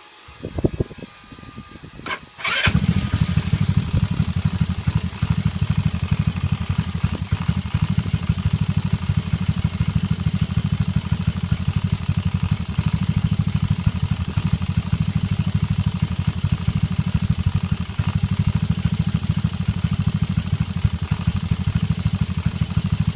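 GY6 single-cylinder four-stroke scooter engine starting after a brief crank about two and a half seconds in, then idling steadily with a fast, even low pulse.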